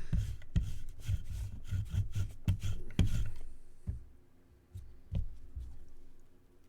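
Trading cards and their packaging being handled on a tabletop: a run of soft knocks, clicks and rubbing that dies down after about three and a half seconds to a few separate taps.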